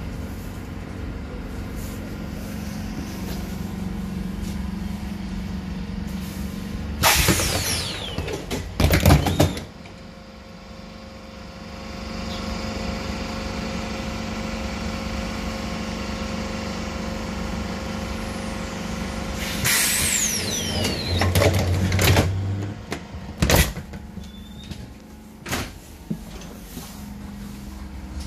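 Light-rail car's pneumatic folding doors and retractable step: a loud hiss of air with clatter as they open about seven seconds in, a steady hiss while they stand open, then another air release, clatter and a thud as they close. The car's low running hum is heard at the start and again near the end.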